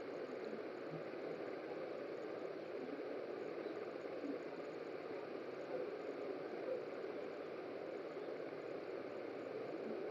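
Faint, steady background hiss (room tone) with no distinct events.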